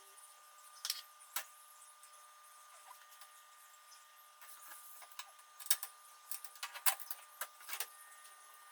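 Scattered light clicks and knocks from plants in pots being handled and set down in a glass-fronted cabinet, most of them in the second half, over a faint steady high tone.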